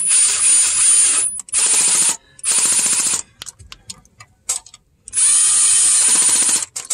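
Milwaukee Fuel cordless impact driver on its lowest setting, running in four short bursts with a high whine as it drives the 10 mm coil pack bolts back in.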